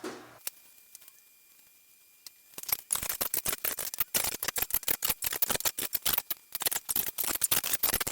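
Rapid, irregular run of sharp clicks, several a second, starting about two and a half seconds in after a near-quiet stretch.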